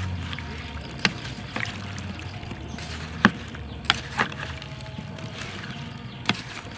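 Wooden spoon stirring diced fruit in a stainless steel bowl: moist fruit pieces shifting, with about five sharp knocks of the spoon against the metal.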